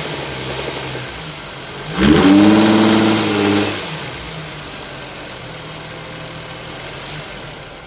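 Infiniti FX35's 3.5-litre V6 running with a spun bearing. About two seconds in it is revved once, rises in pitch and holds for under two seconds, then drops back to a steady idle.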